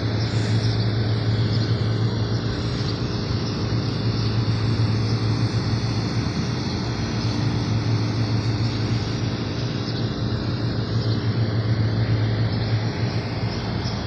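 Rooftop air-conditioning units running: a steady low hum with an even rush of fan noise.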